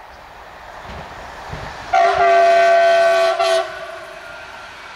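Passing electric multiple-unit passenger train sounding its horn: one steady chord-like blast of about a second and a half, with a brief dip just before it stops. The train's rumble on the rails grows beneath it as it approaches.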